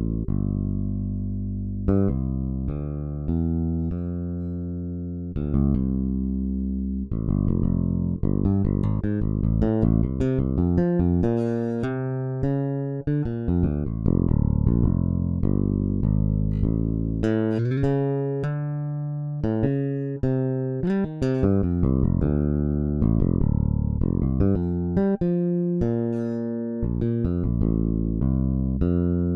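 Toontrack EZbass virtual electric bass playing a gospel MIDI bass pattern. It opens with a few long held notes, then from about seven seconds in becomes busier, with quick runs and fills.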